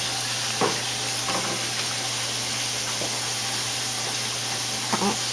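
Steady hiss of kitchen noise with a low hum under it, broken by a few light knocks or clicks about half a second in, near a second and a half, and near the end.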